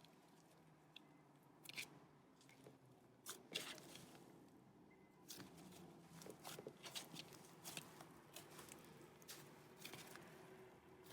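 Hands squishing and stretching slime: faint, irregular crackles and small pops, with the loudest snap about three and a half seconds in and a busier run of pops in the second half.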